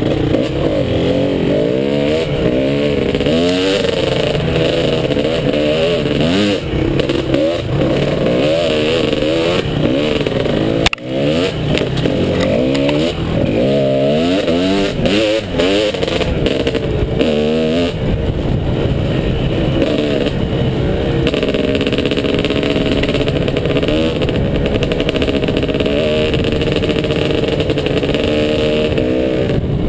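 Dirt bike engine, heard close up from the bike carrying the camera, revving up and down over and over through the first half, then holding a steadier pitch for the last ten seconds or so. One brief dropout with a click about eleven seconds in.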